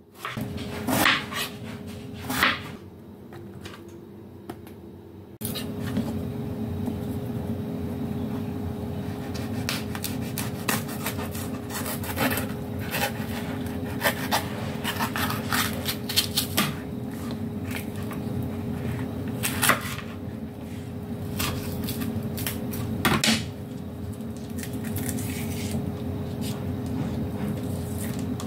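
Kitchen knife cutting vegetables on a plastic cutting board: irregular sharp clicks and taps as the blade hits the board, with handling rustles between. A steady low hum starts about five seconds in.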